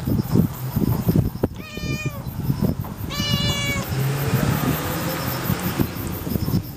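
Domestic cat meowing twice, two calls of under a second each, about a second apart.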